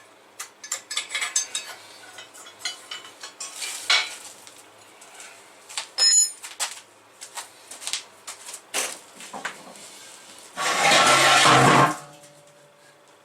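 Pieces of scrap metal being handled, clinking and clanking irregularly, with a short metallic ring about six seconds in. Near the end comes a louder, rougher burst of noise lasting about a second.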